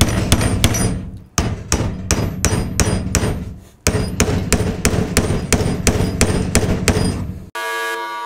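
A hammer striking a brass punch, about three blows a second in several runs, drifting a tight front sight out of the dovetail of a SIG Sauer P320 slide clamped in a vise; the sight will not budge. Near the end the blows stop abruptly and a steady electronic buzz takes over.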